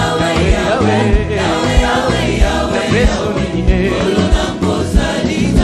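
Congolese gospel worship music, a choir singing in Lingala over a bass line and a steady drum beat.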